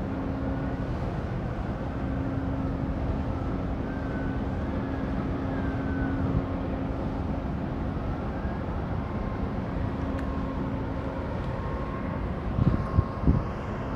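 A steady low rumble with a constant hum from an outbound oil products tanker's machinery as it passes, mixed with wind buffeting the microphone. A few heavier low thumps come near the end.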